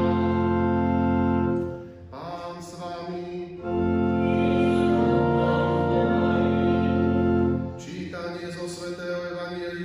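Church pipe organ playing long, steady held chords with a strong bass, with singing alongside, as in the Alleluia acclamation before the Gospel. The chords break off briefly about two seconds in and give way to quieter playing near the end.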